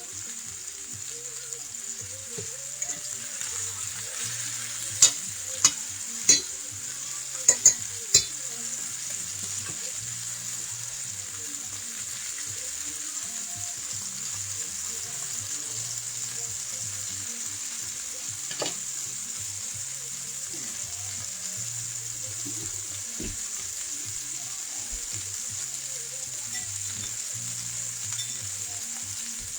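A beef roast searing in hot oil in a skillet, sizzling steadily. A handful of sharp clicks come in a cluster about five to eight seconds in, and one more later.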